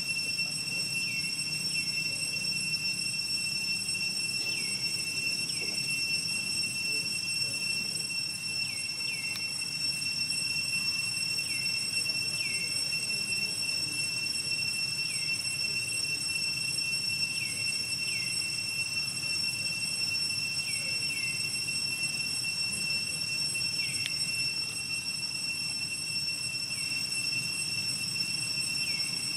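Steady high-pitched insect drone, unbroken and with overtones, like a tropical cicada chorus. Short falling chirps, often in pairs, come every second or two.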